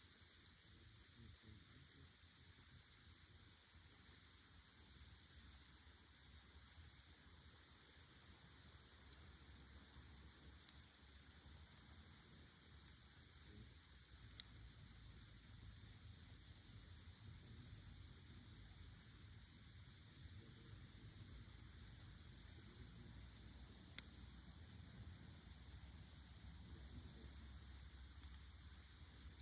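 Crickets chirring in a steady, high-pitched, unbroken chorus on a warm summer night.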